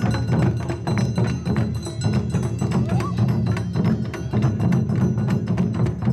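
Japanese festival dance music driven by taiko drums, many fast strokes in a dense, steady rhythm.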